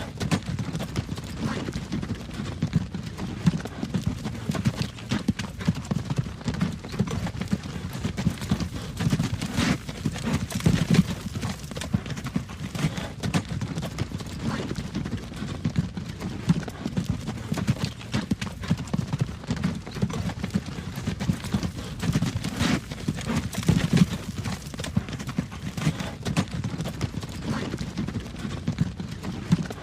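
Horse-drawn wagon rolling down a road: a horse's hooves clip-clopping in a steady, continuous rhythm over a low rumble of the wagon.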